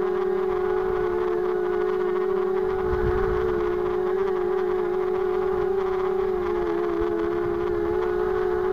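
Small 250-size FPV racing quadcopter (RCX H1806 2400kv brushless motors on Gemfan 5x3 props) hovering close to the ground, giving a steady buzzing whine. The pitch wavers slightly and at times splits into two close tones as the motors change speed to hold the hover.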